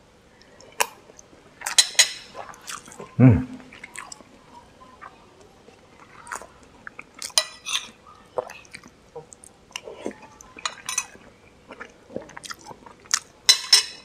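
Close-up chewing and mouth sounds of a man eating rice with balado egg, tofu and fried battered tempeh, picked up by a clip-on microphone on his shirt, with scattered small clicks. A short, loud low sound about three seconds in falls in pitch.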